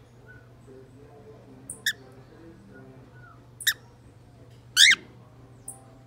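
Cockatiel giving short, high chirps: one about two seconds in, then two more, the last one the loudest and longest with a quick warble, and a tiny peep near the end.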